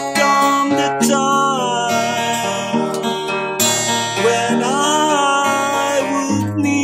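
Acoustic guitar strumming slow ballad chords, with a held melody line over them that wavers and bends in pitch.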